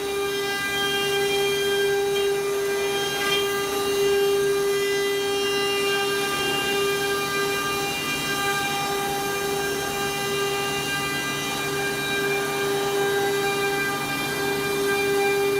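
Spindle of a CNC wood-carving router running at a constant speed, a steady high whine with overtones over a hiss of cutting.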